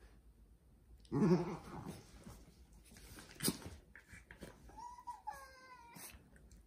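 Two Norwich terriers play-fighting: a loud, short growl about a second in, a sharp knock midway, then a wavering, high whine near the end.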